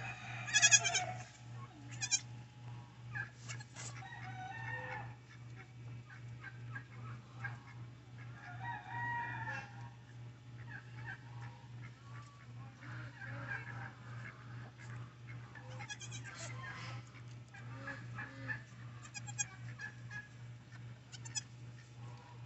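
Chickens clucking with a rooster crowing, mixed with goat calls: a loud bleat right at the start, then softer bleats from the doe and her newborn kids, over a steady low hum.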